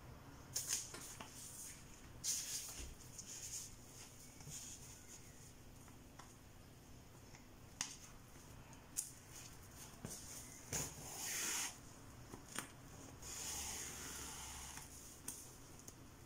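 Hands handling a wig cap and curly hair on a mannequin head: scattered bursts of rustling and scraping, with a few sharp clicks and a longer rustle near the end.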